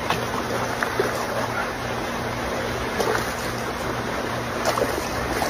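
Steady wind and water noise over a low, steady hum, with a few faint clicks.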